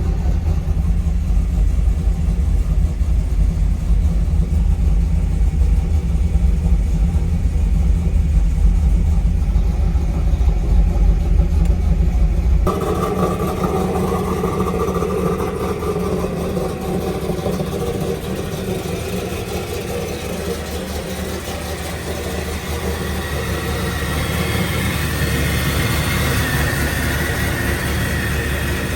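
LS3 V8 with a BTR stage 4 cam idling after a cold start, still on its startup tune and not yet dyno-tuned, heard through a stock catback exhaust. About thirteen seconds in the sound changes abruptly, losing much of its deep low end and turning brighter.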